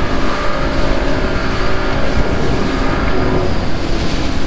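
Small fishing boat's engine running steadily under way, a constant drone of tones under a rush of noise and low rumble.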